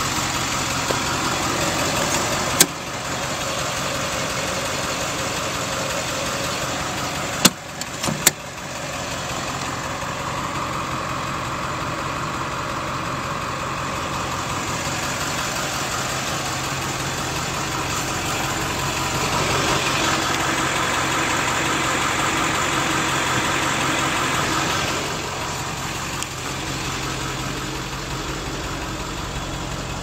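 2000 Blue Bird Mini Bird school bus engine idling with a steady hum. There is a sharp click about two and a half seconds in and two more near eight seconds in.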